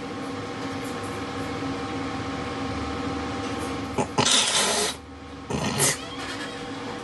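A steady hum of several fixed pitches, then about four seconds in a loud crash and, a second later, a second shorter one, as a wooden picnic table tips over backwards under two seated men and hits the grass.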